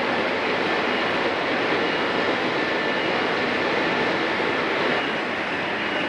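48-head rotary plastic bottle filling and sealing machine running at speed: a steady, even mechanical rush of noise with a faint, high, steady tone over it.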